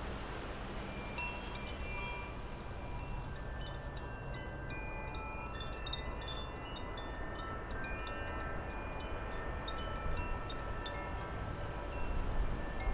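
Wind chimes ringing, with many overlapping ringing notes at different pitches, over a steady low rumble of wind.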